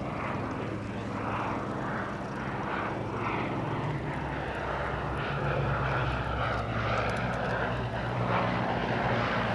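The de Havilland DH60X Moth biplane flying past, its 105 hp Cirrus Hermes II four-cylinder inline engine and propeller giving a steady drone that shifts slightly in pitch.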